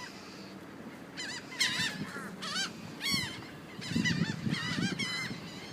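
A flock of birds calling over one another: many short calls that rise and fall in pitch, overlapping, starting about a second in.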